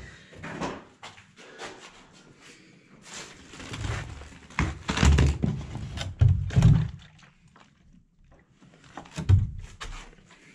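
A few dull thuds and knocks as a plastic canister of wall primer is handled and set down on a concrete floor. The loudest thuds come around the middle, with one more near the end.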